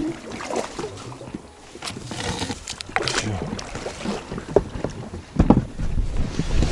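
Small rowboat being rowed: oars dipping and splashing in the water, with scattered sharp knocks of the oars and boat.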